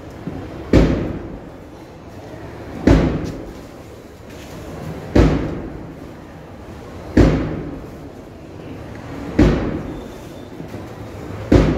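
A drum struck in a slow, even beat, one heavy echoing stroke about every two seconds, six in all.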